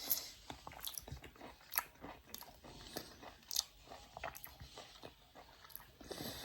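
A person chewing and biting orange segments close to the microphone: an irregular string of small, quiet clicks and crunches.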